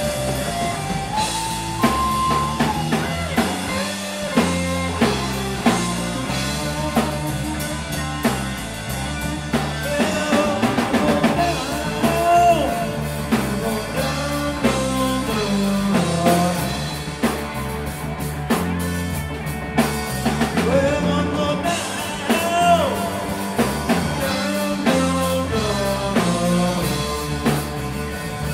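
Live rock band playing: electric guitars, electric bass and a drum kit, with a lead line of bending, sliding notes over the beat.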